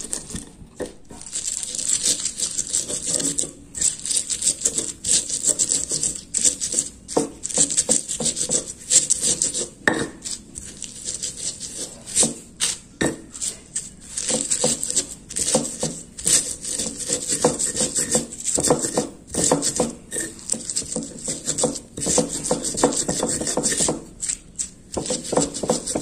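Stone pestle crushing and grinding raw chillies, shallots and sugar against a volcanic-stone mortar (cobek), in quick, uneven scraping and crunching strokes: stone on stone with the crushed ingredients in between.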